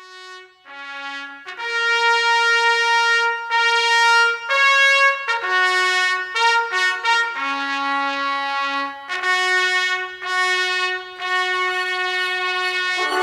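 Background music: a solo trumpet playing a slow melody of long held notes, entering softly and then carrying on at full level.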